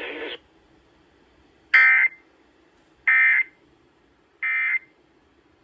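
Emergency Alert System end-of-message signal: three short bursts of warbling data tones, about a second apart, closing a broadcast severe thunderstorm warning.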